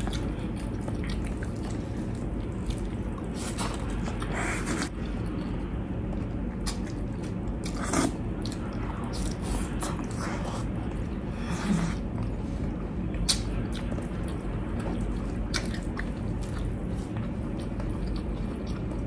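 Close-miked eating sounds: chewing and biting into fried chicken and burger steak, with scattered wet smacks and clicks from mouths and sauce.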